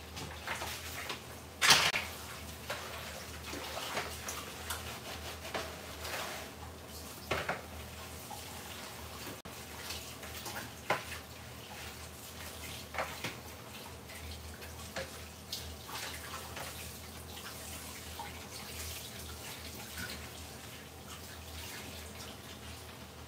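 Curry chicken cooking in a covered pot: a steady hiss with irregular sharp pops and spits, the loudest about two seconds in.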